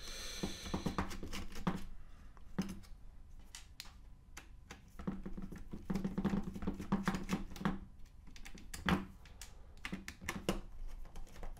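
Small screwdriver taking out the screws that hold the main circuit board of an opened SIYI FT24 radio transmitter: scattered small clicks and handling scrapes of the tool, screws and plastic case.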